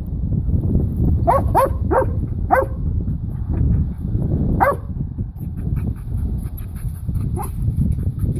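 A dog giving short, high yips and whines that fall in pitch, four in quick succession a little over a second in and another near the middle, worked up over a squirrel hiding in a pipe.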